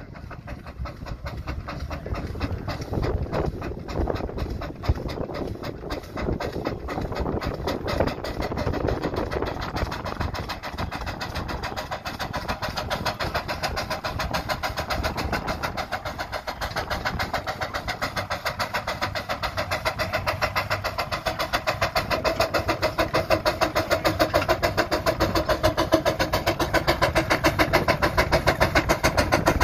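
Half-scale Case steam traction engine working under load pulling a plow, its exhaust chuffing from the smokestack in a quick, even beat. It grows louder toward the end as the engine draws near.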